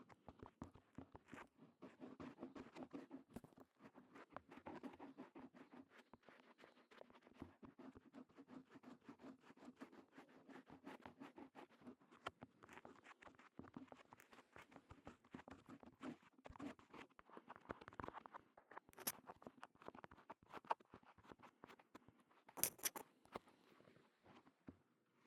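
Faint close-up ASMR ear-cleaning sounds on a KU100 dummy-head microphone's ear: dense fine scratching and rubbing made of many tiny crackles, with a brighter crackle near the end.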